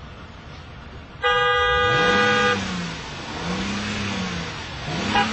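Car horn sounds one long blast about a second in, then a car engine revs up and falls back twice, with a third rev and short quick honks starting near the end.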